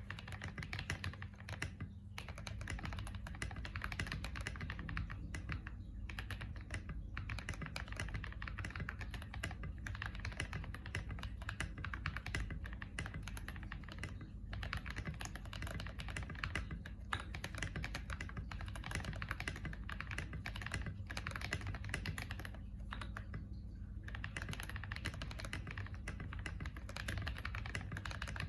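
Fast, continuous typing on a KBD67 Lite mechanical keyboard with lubed Drop Holy Panda tactile switches and SA-profile keycaps, broken by a few brief pauses.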